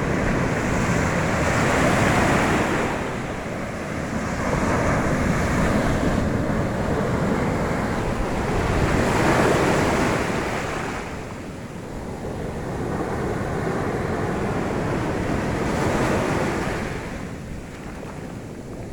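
Mediterranean sea waves washing onto the shore, swelling and falling away every three to four seconds, with wind rumbling on the microphone.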